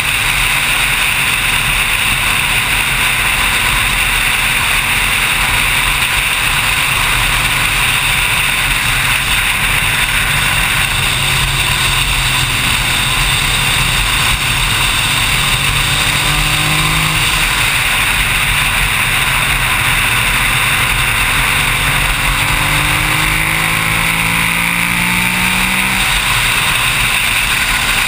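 Motorcycle riding at road speed: heavy wind rush over the camera microphone, with the bike's engine running underneath. The engine note rises twice as it accelerates, about halfway through and again near the end.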